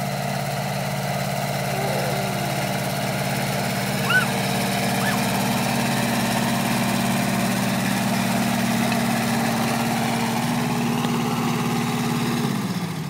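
Compact farm tractor engine running steadily as the tractor pulls a disc harrow. A brief high chirp comes about four seconds in. Near the end the engine note drops and fades as the engine slows.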